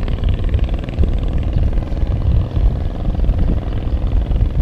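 Wind buffeting the microphone: an uneven low rumble, with a faint steady hum beneath it.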